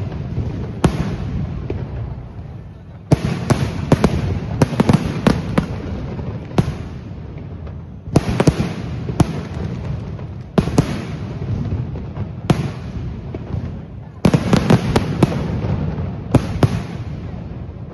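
Fireworks exploding in a string of sharp bangs, some single and some in rapid clusters of three to five, every one to two seconds, over a steady background murmur.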